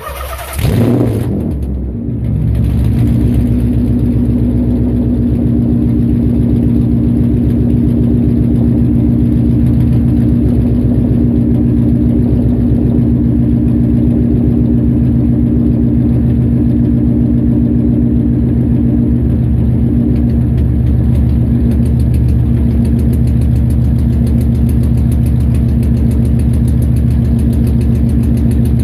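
Nissan VH45DE 4.5-litre V8 starting, catching with a short flare of revs just under a second in, then idling steadily with a misfire.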